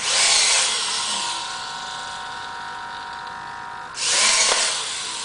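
Electric gear motor of a 3D-printed InMoov robot arm's bicep whining as it bends the elbow up: a loud start that settles into a steady whine with a few held tones. About four seconds in it sets off again with a fresh loud burst as the arm reverses.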